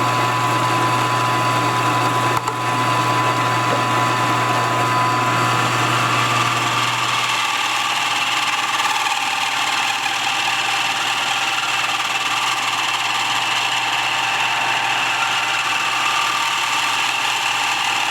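Milling machine running with a 3/4-inch ball end mill cutting into mild steel: a steady motor hum under a high, even whine. About seven seconds in the low hum drops away while the whine carries on, with one brief knock early on.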